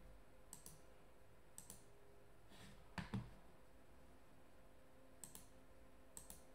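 Faint computer mouse clicks, several short press-and-release pairs spaced a second or more apart, with a soft knock about three seconds in.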